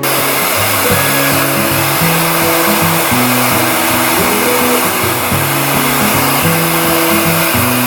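Heat gun blowing steadily, with the even hiss of its fan and air stream, over a background music track.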